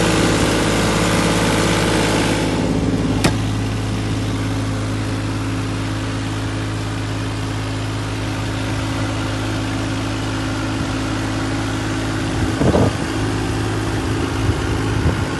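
Takeuchi TB216 mini excavator's diesel engine idling steadily. The brighter hiss drops away about two and a half seconds in, with a single sharp knock just after.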